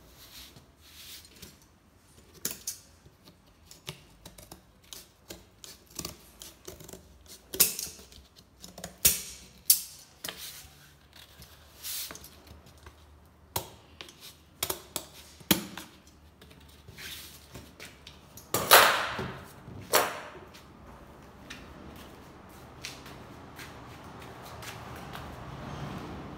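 Scissors cutting corrugated cardboard in short, irregular snips, with a longer, louder stretch of cutting or cardboard handling about two-thirds of the way through. Quiet background music comes in near the end.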